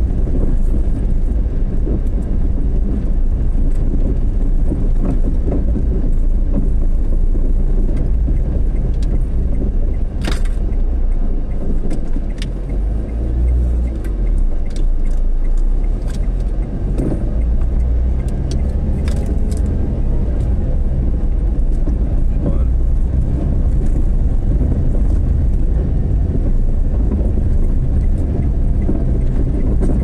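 Steady low rumble of a vehicle driving along a road, with a few short clicks and knocks.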